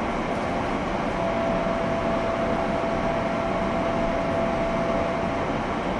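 Steady noise inside a JR 201 series electric train's MoHa 200 motor car, with a steady tone held for about four seconds from about a second in.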